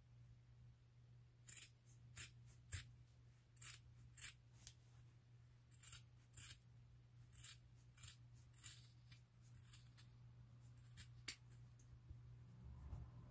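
Faint snipping of a pair of scissors cutting through a knit sock: about fifteen separate cuts at an uneven pace, stopping about eleven seconds in.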